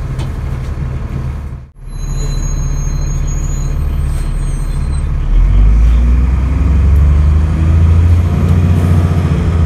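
Dennis Trident double-decker bus engine heard from inside the saloon, running steadily under way. About five seconds in it gets markedly louder and deeper as the bus accelerates hard, the engine working under full load on kickdown.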